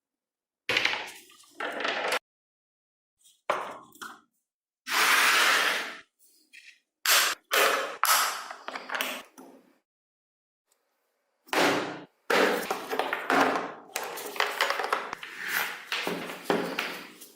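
Knocks, clinks and scrapes of small model-car parts being handled and worked on a hard surface, with a short rushing hiss about five seconds in and a busier stretch of scraping clatter near the end.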